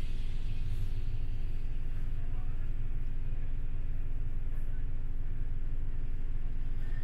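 City bus's diesel engine idling, a steady low rumble with a faint hum above it, heard from inside the passenger cabin while the bus stands in traffic.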